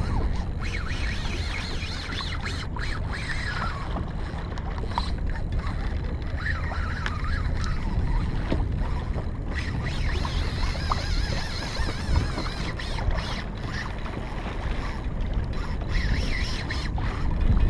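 Wind buffeting the microphone and choppy sea water lapping and splashing against a fishing kayak's hull, with a few scattered clicks.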